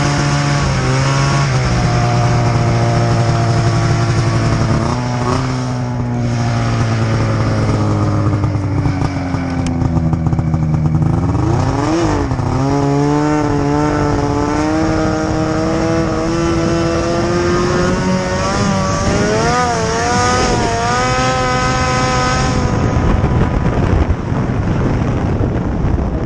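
Snowmobile engine running under way, its pitch rising and falling with the throttle. It eases down over the first half, dips sharply about halfway, then climbs and wavers before levelling off.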